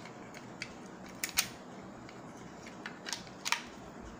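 A handful of short, sharp clicks with light handling noise as a small diecast model car is worked free of the thin wire tie holding it to its cardboard box base, two clicks close together about a second in and three more near the end.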